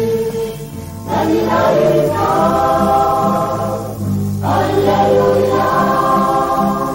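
Choir singing the responsorial psalm, in long held sung phrases; one phrase begins about a second in and another just after four seconds.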